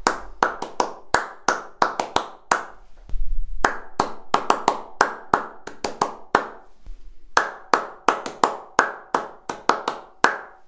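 Hand claps in a bare, untreated small room, coming in quick runs with brief pauses. Each clap leaves a short ringing echo off the hard walls: the room reverberation that acoustic panels are meant to absorb.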